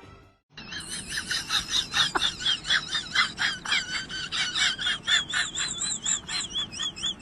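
Rapid, high-pitched animal chirping and warbling that starts about half a second in and continues as a fast stream of short, wavering notes.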